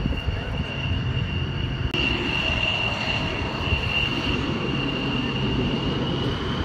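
Aircraft engine noise at an airfield: a steady low rumble with an even, high-pitched whine over it. The sound changes abruptly about two seconds in.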